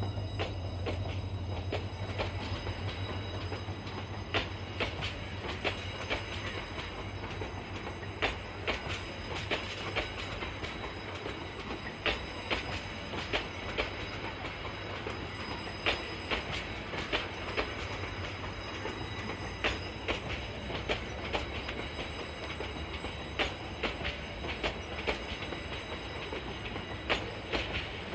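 Train of PT INKA passenger coaches rolling past close by: a steady rumble with wheels clicking over the rail joints, often in pairs, every second or two. A low hum fades out over the first few seconds.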